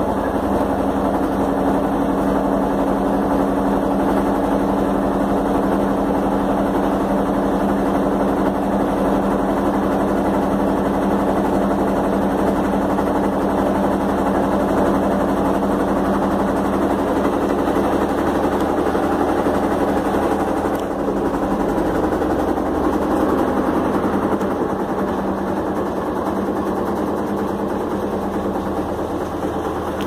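Electrolux LF11 top-load washing machine spinning its basket: a steady motor and drive hum with a held low tone, which fades and softens a little about two-thirds of the way through.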